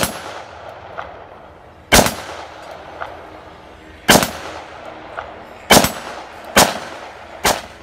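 Gunshots: six loud shots at uneven gaps of one to two seconds, each trailing off in an echo, with fainter single cracks between them.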